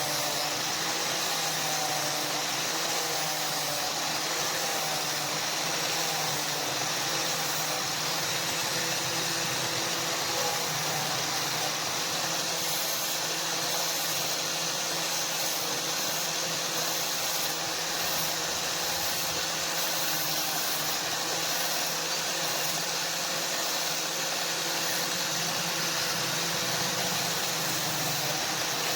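Electric motor running steadily for the whole stretch: a constant hum over an even hiss, with no hammer blows.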